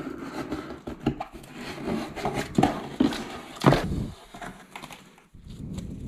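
Cardboard box being handled and opened by hand: rustling and scraping of the flaps with a run of irregular knocks, the loudest a sharp knock a little over halfway in.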